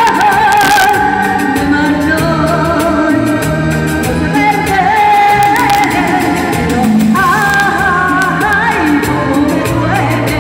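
A woman singing a song into a handheld microphone over instrumental backing music with a steady bass line and beat. Her voice holds long notes with vibrato.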